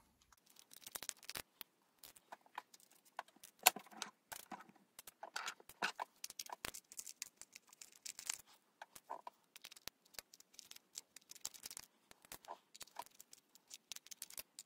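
T6 Torx screwdriver turning small screws out of the plastic base of a Google Nest Mini: a run of light, irregular clicks and scrapes as the bit works in the screw heads, with one sharper click about four seconds in.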